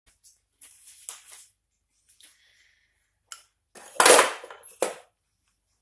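Rustling and clattering of things being handled on a table, in a few short bursts with sharp clicks. The loudest is a bump and rustle about four seconds in, followed by a click.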